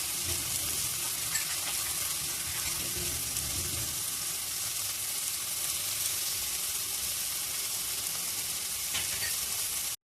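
Ingredients frying in hot oil in a pan: a steady sizzle with scattered small crackles, cutting off suddenly at the end.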